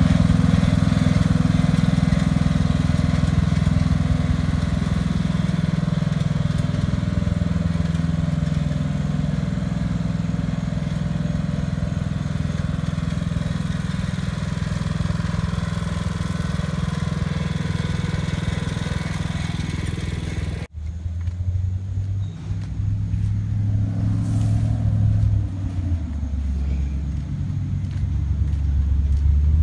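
Riding lawn tractor's engine running steadily under mowing load. About two-thirds of the way through, the sound cuts off abruptly and gives way to a different, lower steady engine hum.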